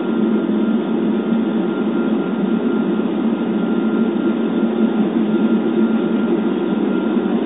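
Jet airliner cabin noise in cruise, heard from a window seat: a steady, loud drone of engines and rushing air, with a thin steady whine above it.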